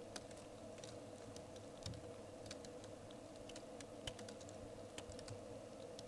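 Falling snow landing as faint, irregular ticks, a few a second and uneven in strength, over the steady drone of a radon pump.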